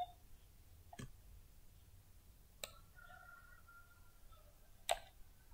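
Three computer mouse clicks over faint room tone, about a second, two and a half seconds and five seconds in; the last is the loudest.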